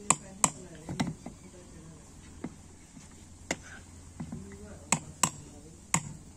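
A stone used as a hammer knocking on a metal motorcycle fitting: about nine sharp, irregularly spaced knocks.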